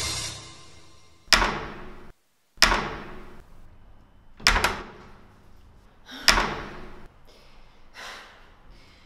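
A door banged loudly four times, a hit every one and a half to two seconds with the third a quick double knock, each ringing out in a short echo; two fainter knocks follow near the end.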